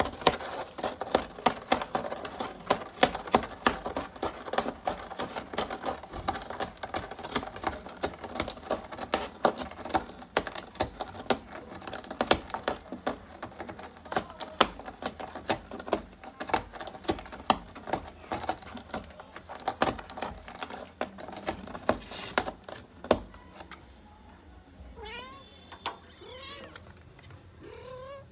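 A cat clawing at the inside wall of a cardboard box: a fast, uneven run of scratching clicks on the cardboard, with kittens meowing. The scratching stops about 23 seconds in, and a few short rising-and-falling kitten mews follow.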